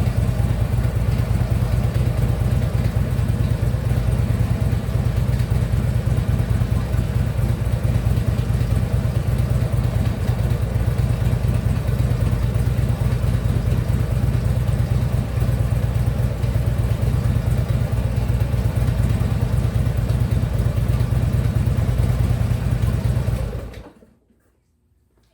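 Harley-Davidson Ultra Limited V-twin engine running steadily, then shut off abruptly near the end. The owner hears a strange noise from the lower end, while the newly fitted compensator runs quiet.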